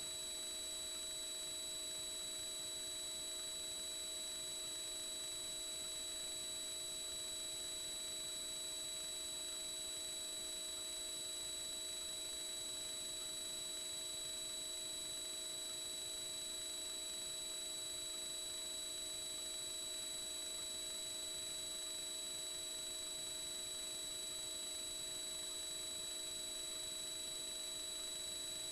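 Steady electronic whine: several fixed high and middle tones over an even hiss, unchanging throughout.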